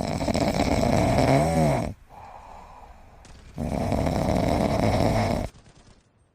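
A pet snoring: two long, loud snores about three and a half seconds apart, the first with a wavering pitch near its end.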